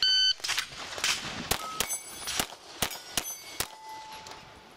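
An electronic shot timer beeps once, then a Glock 9mm pistol fires a quick string of shots about half a second apart, with steel plates ringing as they are hit.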